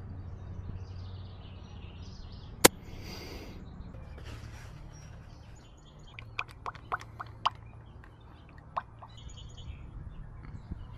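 Birds chirping over a steady low hum, with one sharp click about two and a half seconds in and a quick run of short ticks a little past the middle.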